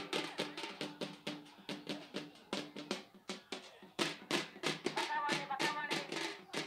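Drums beaten in a fast, steady rhythm of about four to five strokes a second, easing off briefly before heavier strokes come in about four seconds in. A wavering higher tone sounds over the drumming between about five and six seconds.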